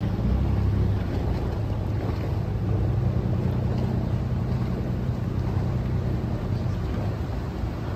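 Motor yacht engines running at low speed, a steady low rumble, with wind noise on the microphone.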